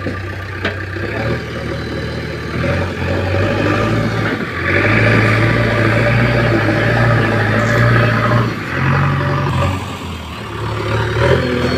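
Diesel engine of a JCB earth-moving machine working. It revs up under load about four and a half seconds in, with a higher whine riding over it, eases off around nine seconds, then picks up again near the end.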